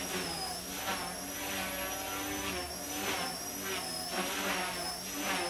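Mini CP micro collective-pitch RC helicopter in flight on dual brushless motors: a steady high-pitched motor whine that wavers slightly in pitch, over the whir of the spinning rotors.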